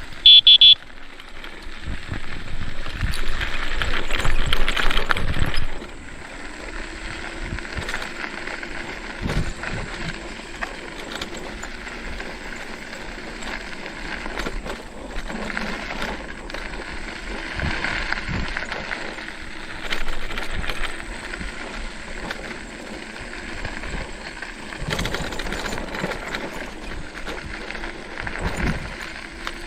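E-bike being ridden over a rough track: tyre rumble and rattling with scattered knocks from bumps. A short, high pulsed beep sounds right at the start, and a louder rushing noise follows for a few seconds.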